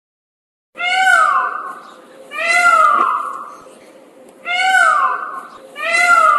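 A cat meowing four times in a row, each meow a loud, drawn-out call that falls in pitch.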